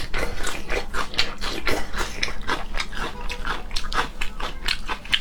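Close-miked eating sounds: rapid wet chewing and lip-smacking, several smacks a second, as in mukbang.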